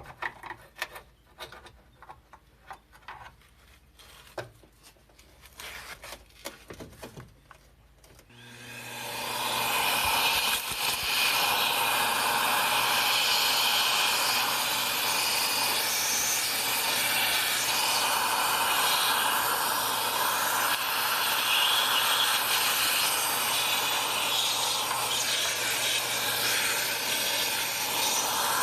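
Light clicks and taps, then about eight seconds in a power tool starts and runs steadily, with a constant low hum under a loud rasping noise, as it abrades rust and paint off a car's body panel.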